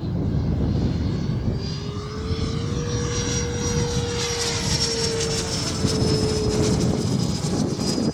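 HSD SuperViper model jet's 12S electric ducted fan whining over the rush of air as it flies. The whine rises in pitch about a second and a half in, then holds steady before easing slightly near the end.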